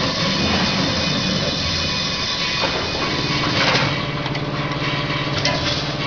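Automatic feed packing machine running while it fills a bag with feed: a steady mechanical drone. A lower motor hum joins about two and a half seconds in, and a short rush of noise comes near four seconds.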